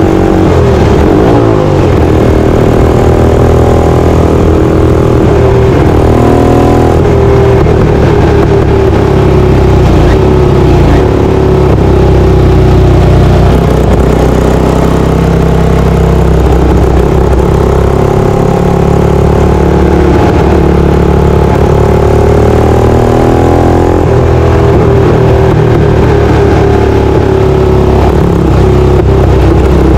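Ducati 450 air-cooled single-cylinder bevel-drive four-stroke racing engine heard from on board, running hard with its pitch rising and falling again and again as it revs up and drops back.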